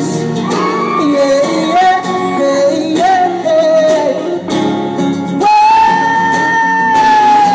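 A singer sings a melody over a strummed acoustic guitar, then holds one long steady note through the last couple of seconds.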